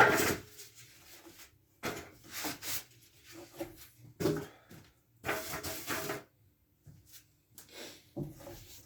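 Cardboard shipping boxes being handled and pulled apart, with irregular scrapes and rubs separated by short pauses.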